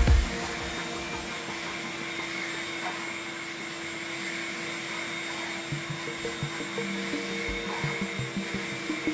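A vacuum cleaner running steadily, a constant whir with a few light low thuds in the second half.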